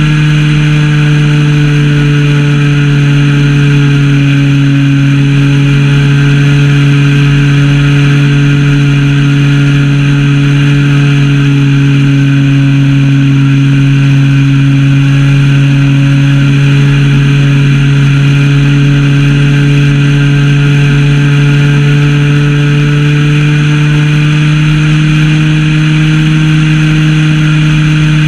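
Zenoah ZP 20 two-stroke gas engine of an RC plane running at steady throttle in flight, close to the microphone, with a steady drone whose pitch sags slightly in the middle and climbs again near the end.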